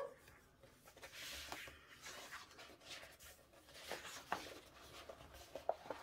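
Faint paper rustling and soft taps as a hardcover book is opened and its pages are turned by hand, with a longer rustle about a second in and a couple of light taps about four seconds in.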